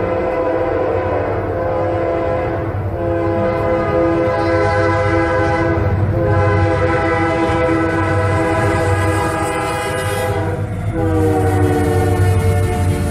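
Nathan Raised Letter K5LLA five-chime horn on a Union Pacific SD70AH diesel locomotive sounding loud, drawn-out blasts with short breaks between them as the train nears a grade crossing. About 11 s in, the chord drops in pitch as the locomotive passes. Under the horn there is a steady low rumble from the train.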